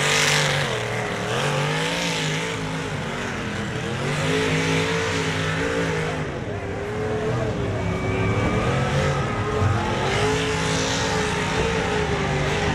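A mud truck's engine revving hard, its pitch rising and falling over and over, under the heavy load of dragging a broken-down pickup through the mud pit.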